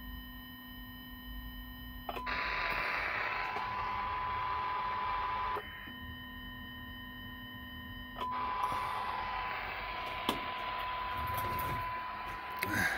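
A steady test tone coming through a radio's speaker over static hiss, alternating with stretches where the hiss drops away and a quieter buzzing whine of several fixed pitches takes over: the hiss and tone return about two seconds in, give way to the buzz again for nearly three seconds, then come back. A click and a few knocks near the end.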